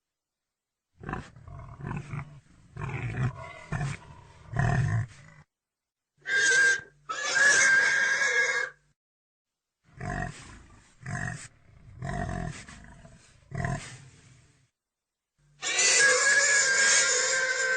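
Pig grunting in short bursts, then squealing, with more grunts and a long squeal near the end. The clips are separated by abrupt dead silences.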